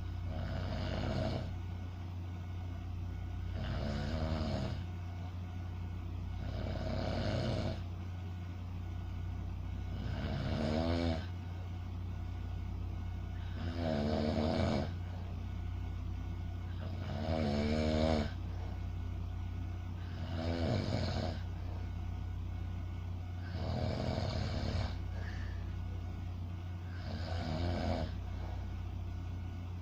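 A sleeping person snoring: a rattling snore about every three and a half seconds, nine in all, over a steady low hum.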